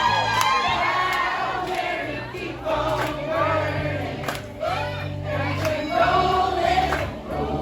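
Karaoke: several voices singing along to a music backing track with a steady bass line.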